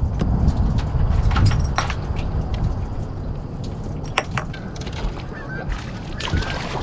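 Short high bird calls, like honks, in the last second or two, over a steady low rumble.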